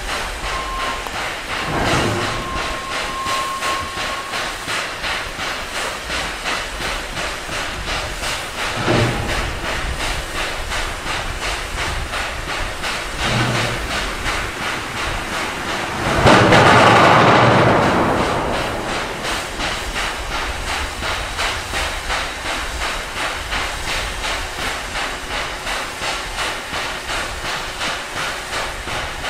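SY-class 2-8-2 steam locomotive hauling a train, its exhaust beating steadily a little under twice a second. About halfway through comes a loud rush of hissing steam lasting about two seconds.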